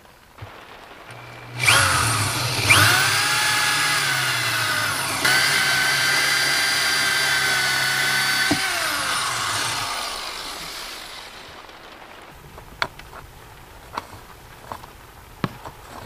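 Corded electric drill boring up through the doubled wooden top plate of an interior wall. The motor whines steadily for about eight seconds, shifting pitch a few times, then winds down, followed by a few light clicks.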